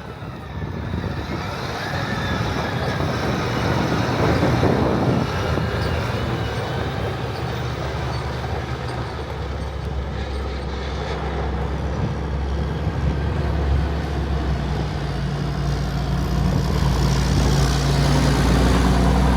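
John Deere 8270R tractor's six-cylinder diesel engine running steadily under load while pulling a liquid manure tanker. A deep engine hum grows stronger in the second half.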